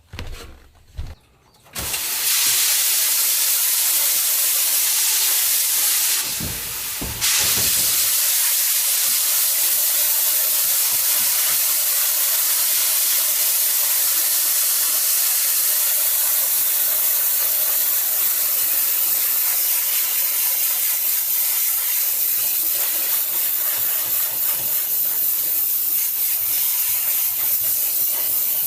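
Water spray gun hissing steadily against a silkscreen, washing out the emulsion after exposure. It starts about two seconds in, falls off briefly with a few low knocks around a quarter of the way through, then runs on.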